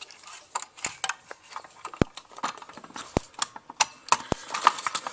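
Keys jangling and clicking at a Fire-Lite BG-10L pull station's key lock, while the Wheelock ET-1080-SLM-24 strobe keeps flashing: a sharp tick about once a second, each followed by a faint high rising whine of its capacitor recharging.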